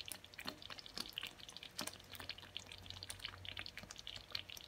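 Thick tomato spaghetti sauce simmering in a pan: faint, irregular pops and crackles of bubbles bursting.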